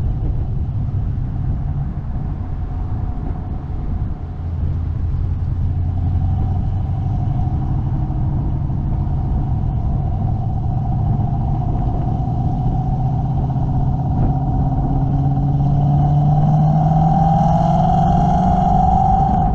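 Ford Mustang engine running steadily while the car cruises, with road noise underneath; over the last few seconds its note climbs as the car speeds up.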